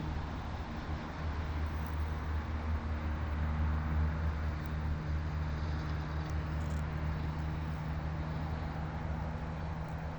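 A steady low engine drone under an even rushing noise.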